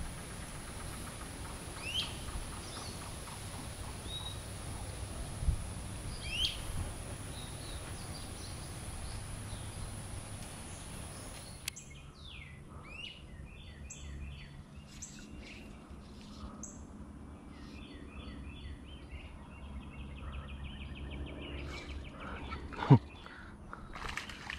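Songbirds chirping and calling over a steady outdoor hiss: a few single chirps in the first half, then a busier run of repeated calls and a quick trill. One sharp knock, the loudest sound, comes near the end.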